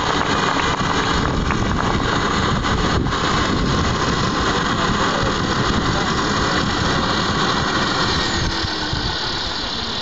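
Large radio-controlled Mi-24 Hind model helicopter's engine running steadily on the ground with the main rotor turning slowly, dropping a little in level near the end.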